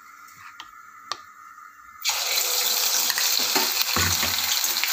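A couple of light clicks, then about two seconds in a ladleful of rava paniyaram batter goes into hot oil in a kadai and sets off a sudden, loud, steady sizzle of deep-frying.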